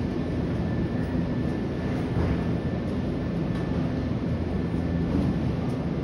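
Nankai 6300-series electric train standing at the platform, its onboard equipment giving a steady low hum under the station's ambient noise.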